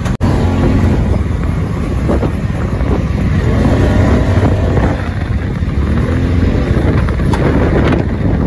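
Polaris RZR side-by-side running over sand dunes, its engine and the ride making a loud, steady low rumble, with wind buffeting the microphone.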